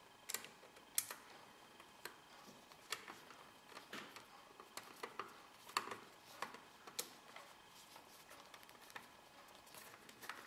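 Faint, irregular clicks and ticks of a Phillips screwdriver turning a mounting screw through a sheet-metal drive bracket into a 3.5-inch hard drive.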